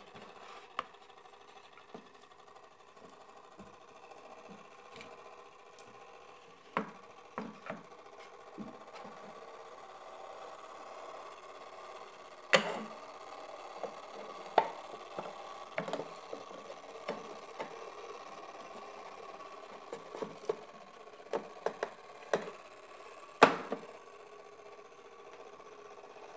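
Clockwork movement of an early-1900s Japanese fly trap running with a steady whir that turns its wooden rollers. Scattered sharp knocks and clicks sound over it, the loudest about halfway and near the end.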